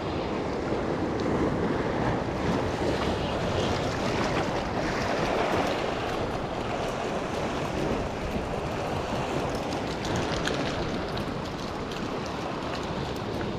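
Sea waves washing against rocks, with wind buffeting the microphone; a steady, even wash without breaks.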